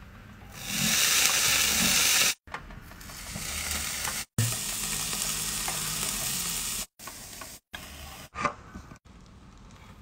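Sizzling and hissing on a hot electric grill grate, loudest in the first couple of seconds, in several short pieces that cut off abruptly; after about seven seconds it drops to quieter handling noise with one short knock.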